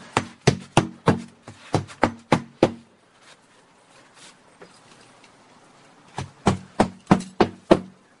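Hammer blows tacking roofing felt paper down over metal step flashing at the foot of a wall. The sharp strikes come about three a second in two runs, with a pause of roughly three seconds between them.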